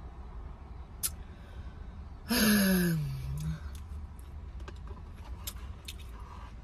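A woman's single drawn-out vocal sound about two seconds in, its pitch sliding down over about a second, over a steady low hum.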